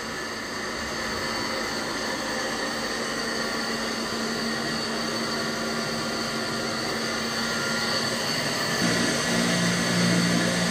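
EMCO 325II CNC lathe running: a steady machine hum with several whining tones. About nine seconds in a lower, wavering hum joins and the sound grows a little louder as the driven milling spindle with its 6 mm end mill comes into play.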